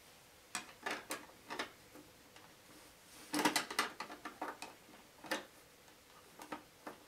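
Batteries being pushed into the battery compartment of a Sony CF-9000 portable cassette radio: scattered plastic clicks and knocks, with a quick cluster of them about three and a half seconds in.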